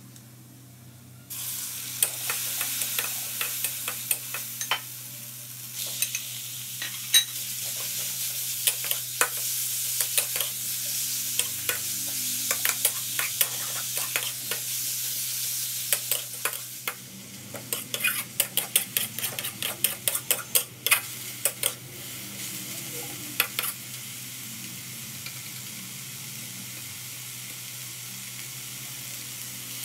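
Sliced pork shoulder sizzling in hot oil in a wok while a spatula stirs it, with many sharp clicks of the spatula against the wok. The loud sizzle starts suddenly about a second in.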